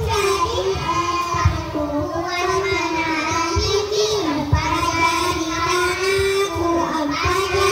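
A group of young children singing a song together over backing music, the melody carrying on without a break.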